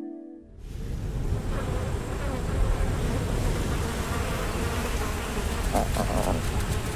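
Insects buzzing steadily in a dense, continuous outdoor ambience, starting just after a held music tone fades out.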